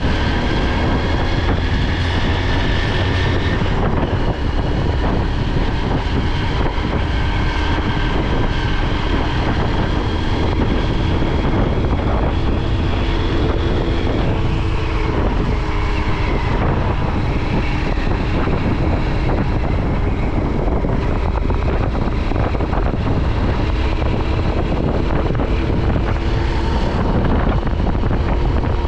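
Motorcycle engine running steadily while riding, with wind noise on the microphone.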